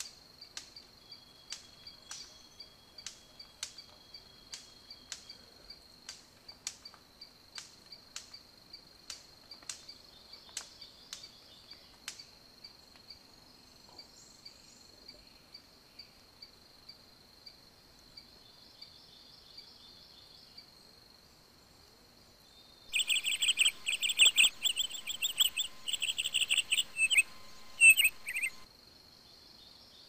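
Superb bird-of-paradise male in courtship display: sharp clicks about two a second over a steady high insect buzz. About 23 seconds in come several seconds of loud, harsh, rapidly repeated rasping calls.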